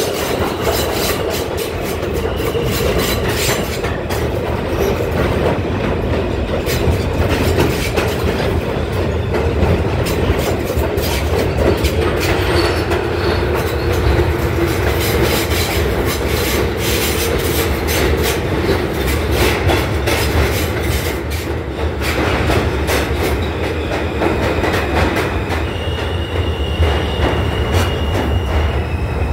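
R160A subway train running at speed through a tunnel: a loud, continuous rumble of wheels on rail with a dense clickety-clack. Near the end a steady high whine joins in as the train slows into a station.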